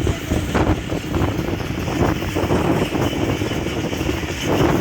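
Moving passenger train: a dense rumble and rattle with frequent short knocks, and wind buffeting the microphone.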